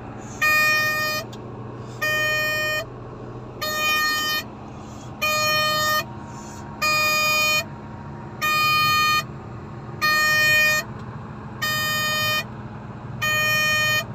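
Komatsu motor grader's electronic warning beeper sounding in a steady series, short beeps about every second and a half, over the diesel engine idling during warm-up.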